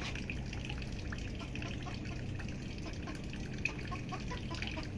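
Water dripping and trickling in many small, irregular drips over a steady low hiss, with one sharper drip a little past halfway.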